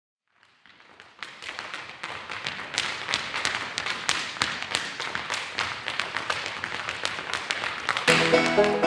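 Wooden-soled clogs rapidly tapping and striking on a hard floor in Lancashire clog dancing, fading in from silence with several sharp taps a second. Music with sustained notes joins near the end.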